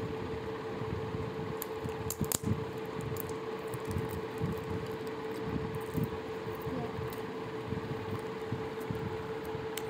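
Clear plastic shrink-wrap crinkling and crackling in scattered short bursts as it is picked at and peeled off a small cosmetics box, over a steady low hum.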